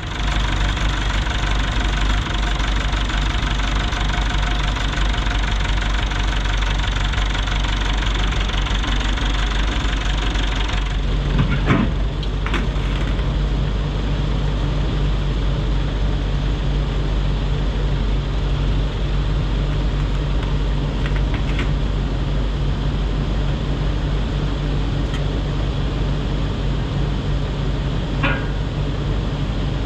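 A motor vehicle engine running steadily. About eleven seconds in the sound shifts: the higher hiss drops away and a steady low hum takes over.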